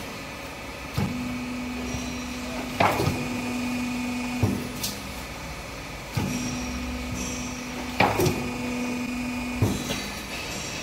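Steel roofing-panel roll forming and tile-pressing machine working in cycles: the drive hums steadily for about three and a half seconds, stops, and starts again, twice. There is a metallic knock at each start and stop, and a louder, ringing metallic clank partway through each run.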